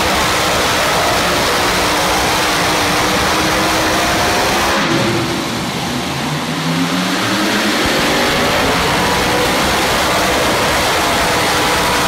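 Pulling-tractor engines running loud and steady. The level drops briefly about five seconds in, and an engine's pitch rises over the next two seconds.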